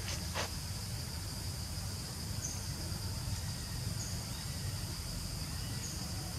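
Steady chorus of insects in the forest, a constant high trill, over a low rumbling background. A few short, higher chirps break in now and then, and there is a brief rustle just after the start.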